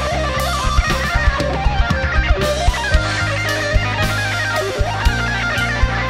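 Live band playing an instrumental passage: an electric guitar carrying the melody over drums and keyboards.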